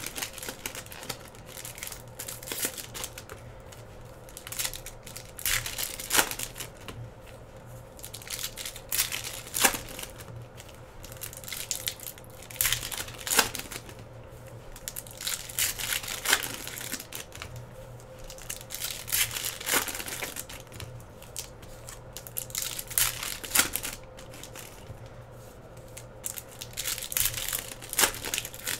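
Trading-card pack wrappers being torn open and crinkled and crushed in the hands, with a sharp rip or crunch every three to four seconds over a faint steady hum.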